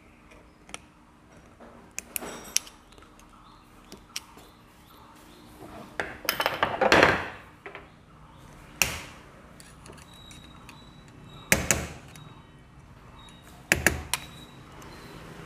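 Metal engine parts and hand tools clicking and knocking as a motorcycle engine is reassembled, a sharp click every second or two with a longer rattle about seven seconds in.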